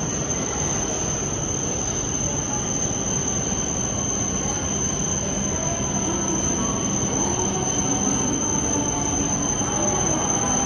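E7-series Shinkansen pulling into a station platform: a rumble of wheels on rail that grows slightly louder as it nears, with faint wavering squeals in the second half as it slows. A steady high-pitched whine sits over it throughout.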